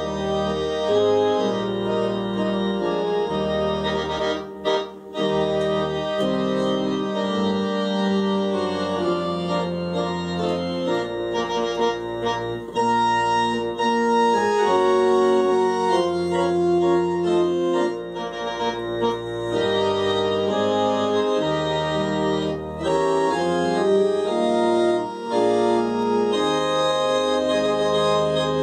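Three-manual home console organ played live: sustained chords over low bass notes that change every second or two, with a brief break about four and a half seconds in.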